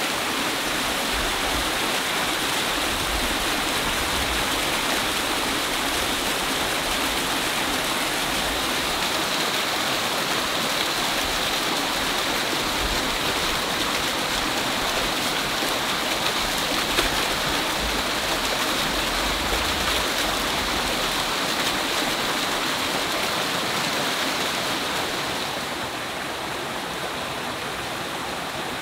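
Water rushing steadily over rocks and down small cascades in a rocky mountain stream, a little quieter in the last few seconds.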